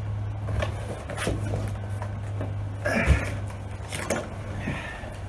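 Handling of a cardboard box and packaged ready meals: scattered knocks and rustles, with a heavier thump about three seconds in, over a steady low hum.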